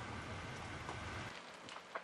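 Forest wildfire burning: a steady rushing noise with a low rumble, then, once the rumble drops away, a few sharp crackles and pops of burning wood near the end.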